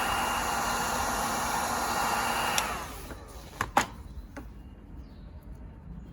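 Electric heat gun running with a steady blowing hiss and a faint fan whine, being used to soften a nylon carburettor locking ring. It is switched off a little under three seconds in and winds down, followed by a few light clicks.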